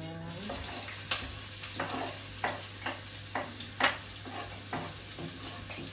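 Chopped onion and garlic scraped off a wooden cutting board into hot olive oil in a pot, sizzling. A knife scrapes or knocks against the board about twice a second as it pushes the pieces in.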